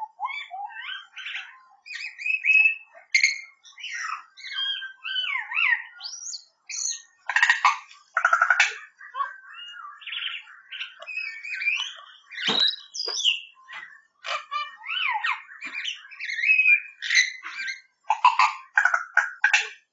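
Tūī singing a long, varied song of phrases with short gaps between them: gliding whistles, wheezy buzzing notes and bursts of rapid clicking, all fairly high-pitched.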